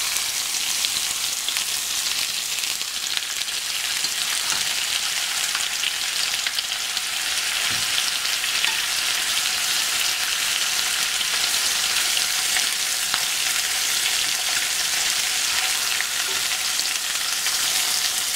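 Pieces of parboiled pork intestine sizzling steadily in hot oil with fried garlic in a pot, with fine crackling throughout, as they are seared to firm them up. They are being turned in the pot.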